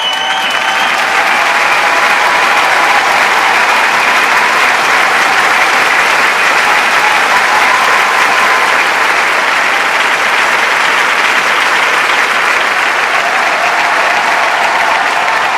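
A large crowd cheering and applauding in a dense, steady roar that swells over the first couple of seconds, then holds.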